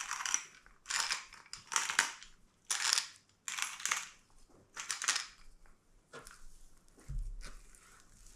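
Pepper grinder being twisted over raw turkey: short gritty crunching grinds, about one a second, fading after about six seconds. A dull thump about seven seconds in.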